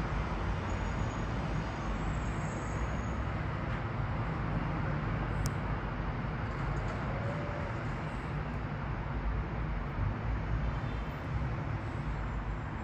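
Distant, steady low rumble of a Boeing 777-300ER's GE90 jet engines cruising at about 32,000 feet, heard from the ground as a wavering roar with a soft hiss.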